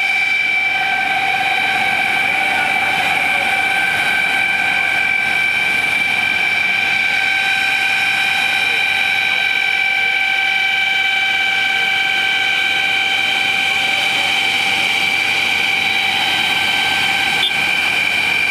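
A steady high-pitched whine holding one unchanging pitch, with faint voices beneath it.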